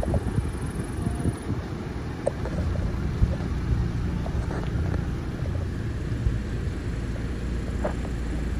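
Steady low rumble of a car rolling slowly along a dirt track, with a few faint clicks.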